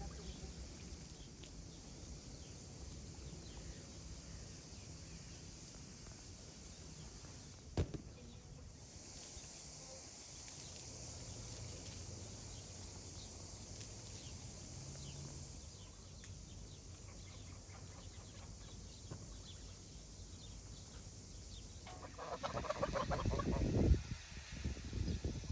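Quiet farmyard ambience with faint poultry sounds and a single sharp knock about eight seconds in; in the last few seconds a flock of domestic geese starts calling loudly and repeatedly.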